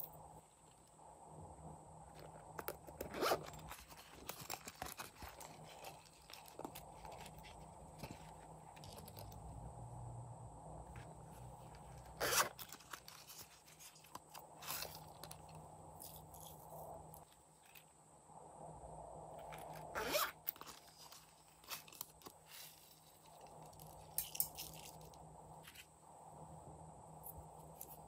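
Faint handling sounds of slime add-ins: the zipper of a silicone pouch being pulled, with scattered sharp clicks and scrapes of plastic, loudest three times across the stretch.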